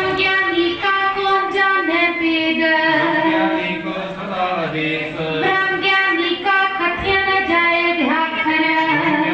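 A high voice singing, holding long notes that bend and waver, over a steady low accompanying tone.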